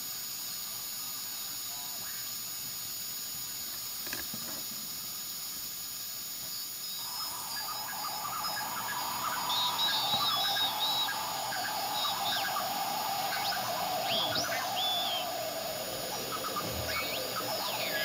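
Radio receiver audio from an RTL-SDR demodulating upper sideband: steady static hiss, then from about seven seconds in, garbled single-sideband signals and whistles. Several of the whistles glide down in pitch as the tuning moves across them.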